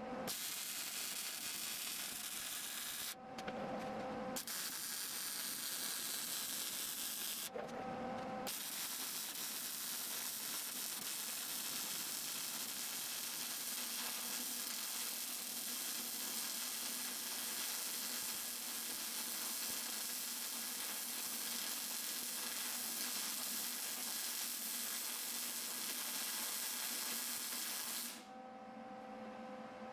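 Plasma cutter cutting steel plate: a steady, loud hiss with two short breaks, stopping near the end, where a faint steady hum is left.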